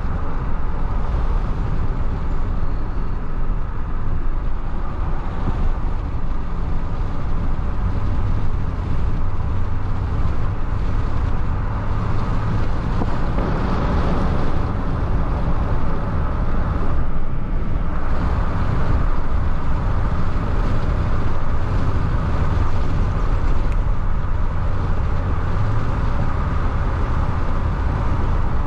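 Steady engine and road noise of a vehicle being driven, a low continuous rumble with an even engine hum.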